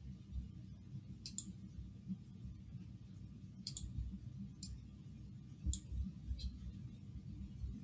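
Faint computer mouse clicks: about six sharp clicks, some in quick pairs like double-clicks.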